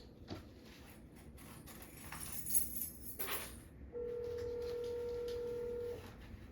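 Telephone ringback tone: a steady two-second ring near the end, coming four seconds after the previous ring. Between the rings there is a short metallic jingling.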